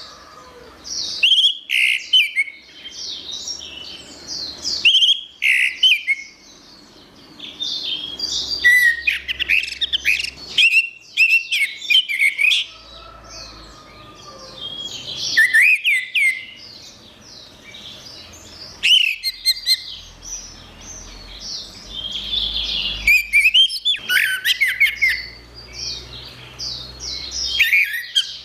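Orange-headed thrush (anis merah) singing: phrases of quick, varied whistled notes that glide up and down, given in bursts with short pauses between them.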